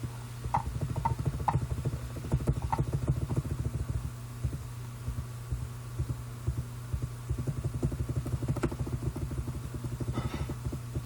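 Rapid soft taps and clicks from a computer keyboard and mouse, several a second, coming and going, over a steady low electrical hum.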